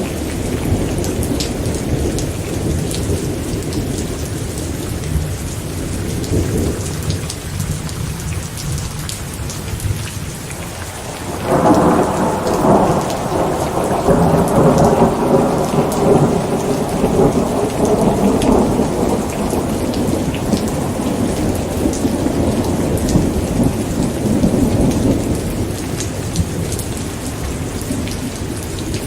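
Steady rain falling with thunder. A low rumble fades over the first several seconds, then a louder roll of thunder breaks in sharply about eleven seconds in and rumbles on, slowly dying away.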